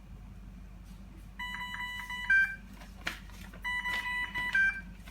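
Dräger Oxylog 2000 plus transport ventilator sounding its alarm: a short run of pulsed two-pitch beeps ending on a higher tone, heard twice a little over two seconds apart, with a few sharp clicks in between. The alarm is one the presenter puts down to the ventilator's oxygen supply not being connected.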